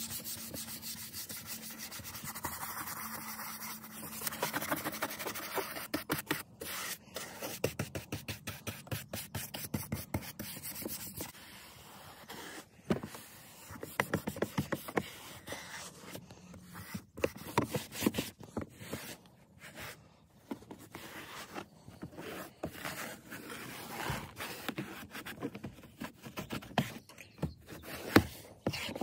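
A small bristle detailing brush scrubbing wet, cleaner-covered car interior plastic trim in quick back-and-forth strokes. Near the end a microfibre towel is rubbed over the panel to wipe it down.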